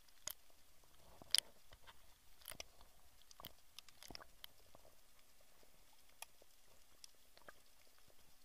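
Faint underwater ambience picked up by a submerged camera: scattered, irregular sharp clicks and crackles, the loudest about a second and a half in.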